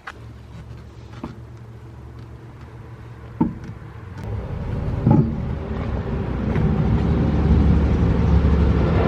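A motor vehicle's low, steady rumble that grows louder over several seconds and then holds, with a few sharp knocks, the loudest about halfway through.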